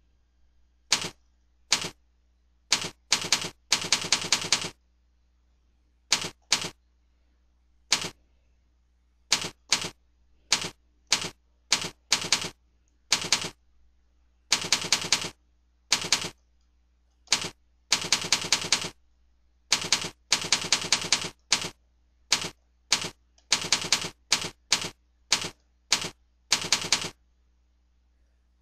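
Typewriter-style keystroke sounds, one per typed character, coming singly and in quick runs with short pauses between.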